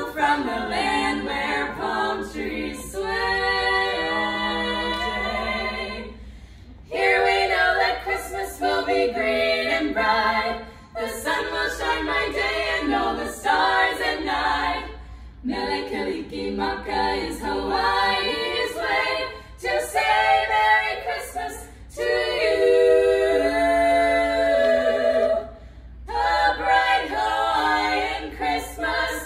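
Female barbershop-style quartet singing a cappella: four voices in close harmony with no accompaniment, in phrases separated by brief pauses.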